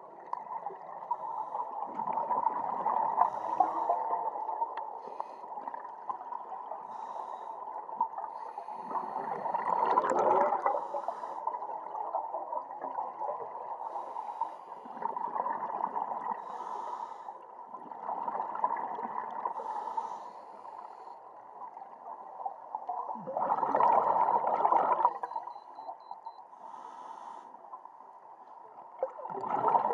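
Scuba diver breathing underwater through a regulator: a slow cycle of hissing inhalations and bubbling exhalations a few seconds apart. The loudest breaths come about a third of the way in and again about four-fifths of the way in.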